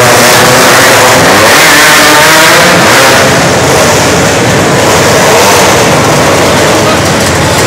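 Engines of several small winged dirt-track race cars running together and revving, rising and falling in pitch. The sound is very loud throughout.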